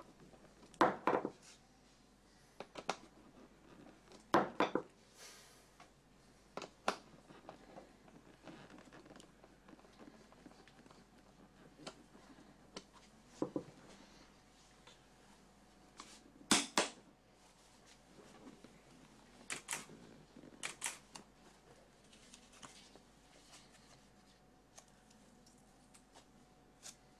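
Irregular clicks, taps and light knocks of hands handling a racing helmet and its plastic visor, with a few louder clicks spread through.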